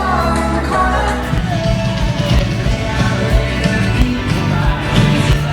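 Loud music with singing over a bass line and a steady drum beat.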